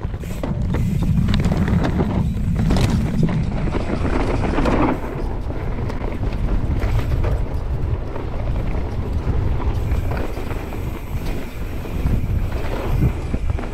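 Mountain bike riding fast down a dirt trail: a steady rush of wind over the microphone, with the bike knocking and rattling over bumps now and then.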